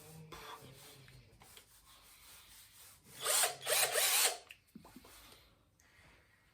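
A power tool runs in one loud burst of about a second, a little past the middle, over faint rubbing and handling noises during renovation work.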